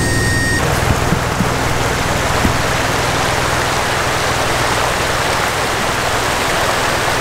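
A steady hiss of water that starts abruptly about half a second in, over the low running of a vehicle engine.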